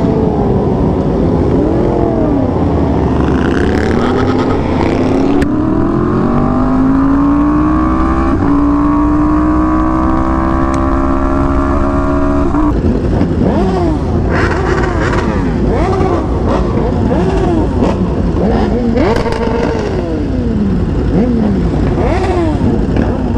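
Sport motorcycle engines: one bike accelerating hard, its pitch climbing steadily for several seconds before cutting off sharply about twelve seconds in. After that come repeated quick rises and falls in pitch as motorcycles are revved and shifted, one after another.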